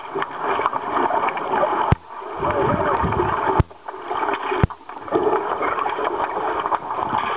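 Pool water splashing and churning steadily as underwater hockey players swim and dive, broken by a few sharp clicks.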